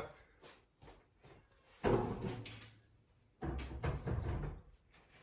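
Bumps and knocks of a plastic steering wheel being handled and set down, in two short bouts about a second and a half apart.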